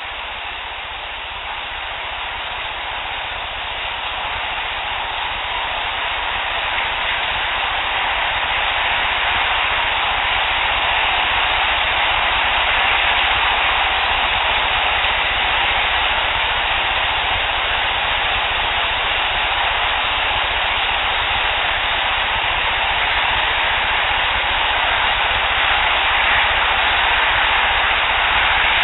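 Steady hiss of a heavily boosted outdoor field recording, growing louder over the first ten seconds or so, with no distinct knocks standing out.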